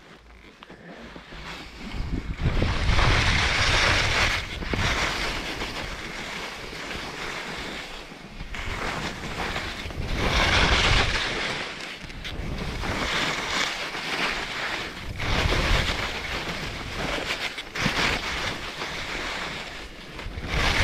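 Skis scraping and carving over firm, bumpy snow on a steep run, the hiss swelling with each turn every few seconds, with wind buffeting the microphone. It starts quieter and builds about two seconds in.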